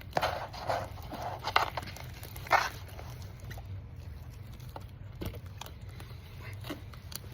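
Slime being mixed by hand: a few short squishing, scraping noises in the first three seconds, then a quieter stretch with a few faint clicks.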